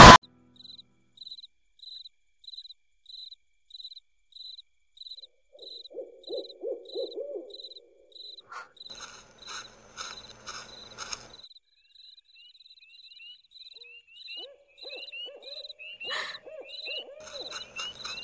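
Night-time nature ambience: crickets chirping steadily at about two chirps a second, with an owl hooting in a short run of notes a few seconds in and again past the middle.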